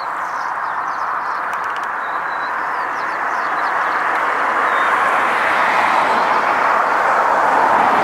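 Rushing noise of a passing road vehicle, growing gradually louder, with a few faint bird chirps above it.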